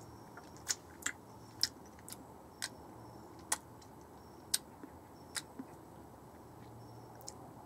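About ten short, sharp clicks, irregularly spaced roughly half a second to a second apart, over a faint low hum.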